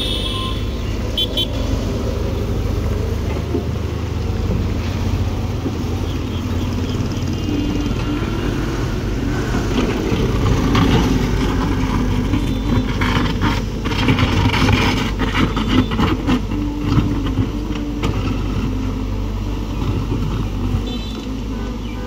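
Excavator's diesel engine running steadily as it digs a trench. From about ten to seventeen seconds in it grows louder and busier, with repeated knocks and scrapes of the bucket working the soil.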